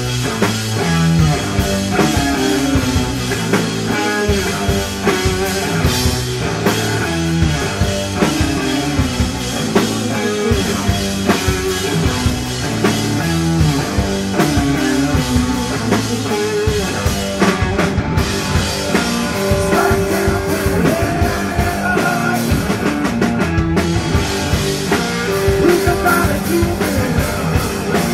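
A rock band playing live: electric guitar, bass and a drum kit in a loud, steady stoner/desert-rock groove.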